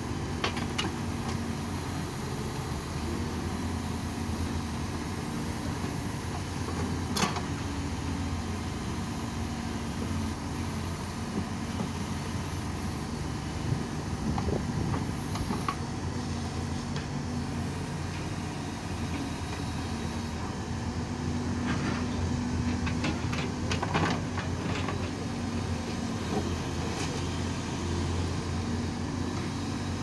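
Backhoe loader's diesel engine running steadily under load as the rear bucket digs, with occasional sharp knocks of the bucket against stones, one about a quarter of the way in and a few more late on.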